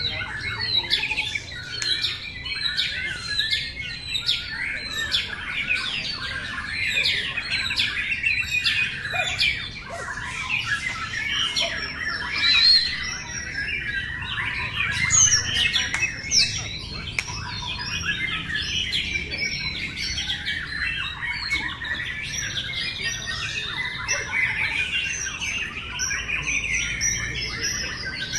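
Many caged white-rumped shamas singing at once: a dense tangle of overlapping fast whistles, trills and chirps that never breaks, with a few louder phrases midway.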